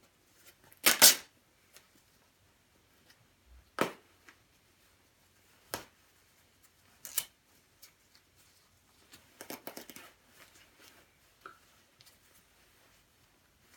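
Fabric of a black quilted down jacket being ripped by hand in short tears. The loudest rip comes about a second in, a few more follow a second or two apart, and a cluster of softer rips and rustling comes near ten seconds.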